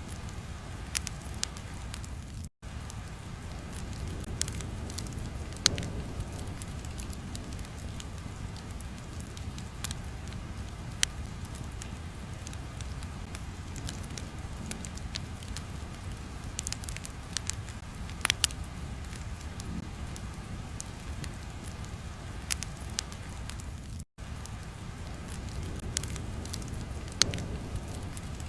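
Crackling fire ambience: a steady low rumble with scattered sharp pops and snaps. The sound cuts out for an instant twice.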